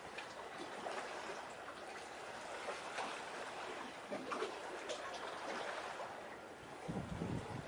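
Small waves lapping and trickling at the water's edge, with a few low thumps near the end.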